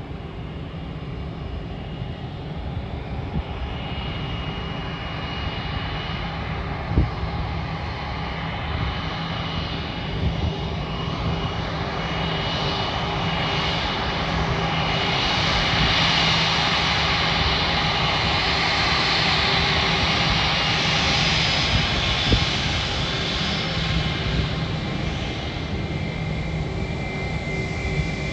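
Airbus A319 airliner's jet engines at taxi power: a steady high whine over a rumble. It grows louder as the plane taxis closer, holds at its loudest through the middle, then eases a little as the plane turns onto the runway.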